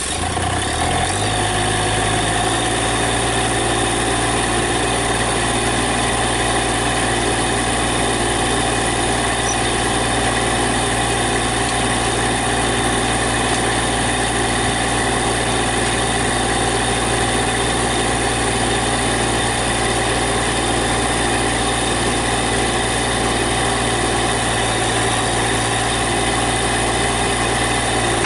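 Massey Ferguson GC1710 compact tractor's diesel engine, just started, settling within the first second into a steady idle.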